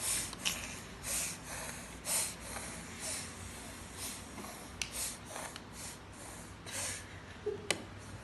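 A girl sneezing over and over, short breathy bursts through the nose about once a second. A couple of sharp clicks fall between them.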